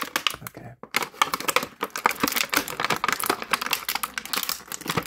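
Clear plastic blister packaging crinkling and crackling as it is flexed and handled, a rapid, irregular run of sharp clicks.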